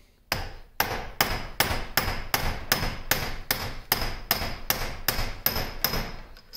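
A hammer tapping on a steel shaft in a lathe's quick-change gearbox: about sixteen even blows, roughly two and a half a second, each with a short metallic ring. The shaft is being driven along through the gearbox case.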